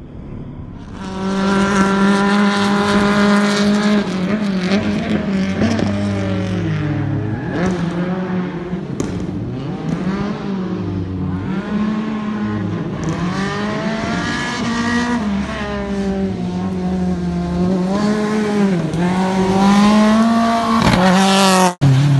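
Rally car engine revving hard, its pitch repeatedly rising and falling as the driver accelerates, shifts and lifts through the corners. The sound cuts out for an instant near the end.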